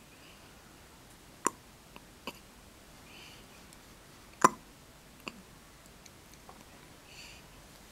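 Baby hiccupping: two sharp hiccups about three seconds apart, the second the louder, each followed by a smaller click.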